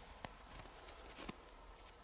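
Faint soft crunching of bare hands scooping fresh snow, with two light ticks.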